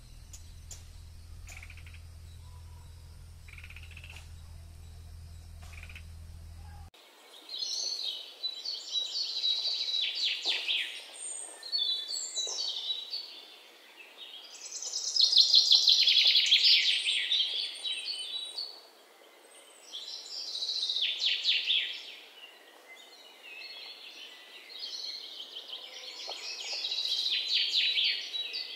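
A low steady hum with faint ticks for about seven seconds. Then red-whiskered bulbul nestlings begging in the nest: loud bursts of rapid, high chattering calls, each two to four seconds long, about five times with short pauses.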